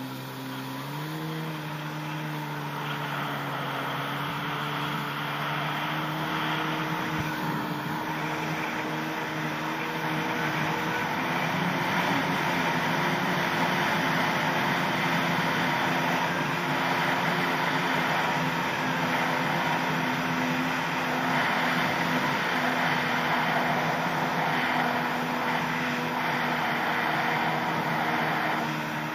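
Yamaha SuperJet stand-up jet ski's two-stroke engine running under way, with the rush of water spray from the hull. The engine pitch climbs a little about a second in, then holds steady.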